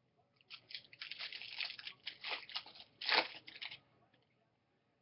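Foil wrapper of a Topps Chrome trading-card pack being torn open and crinkled, a dense run of crackling from about half a second in to nearly four seconds, loudest near the three-second mark.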